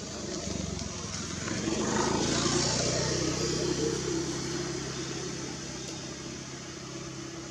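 A motor vehicle's engine passing by, a low hum that swells to its loudest about two to three seconds in, then slowly fades away.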